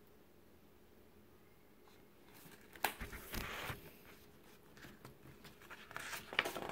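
A hardcover picture book being handled: a sharp knock about three seconds in as it is set down on the table, followed by paper rustling as the pages are handled and turned, with more rustling near the end.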